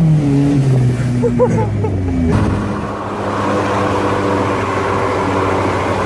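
Turbocharged car engine heard from inside the cabin, its revs falling off for about two seconds after a pull, then dropping suddenly and settling into a steady, lower run.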